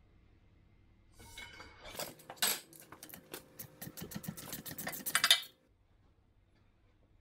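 Socket ratchet on a long extension clicking as a tight plug is unscrewed from the block of a Kubota V1505 diesel engine, with metal clinks. The clicks come faster and faster, showing the plug has broken loose and is spinning out, then stop abruptly.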